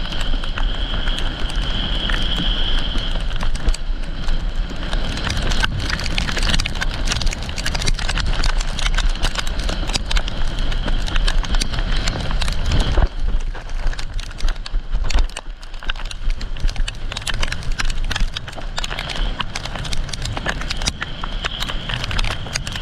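Windsurfer planing fast through a hail squall: steady wind rush on the microphone and the board hissing and slapping over chop, with a dense crackle of small ticks and knocks. A steady high whistle comes and goes. The noise eases a little near the end as the board slows.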